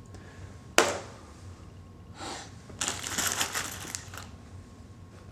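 Small hand tools and metal coax fittings being handled on a hard surface. There is a sharp click about a second in, then a brief clattering rattle of small hard parts in the middle, and a last click.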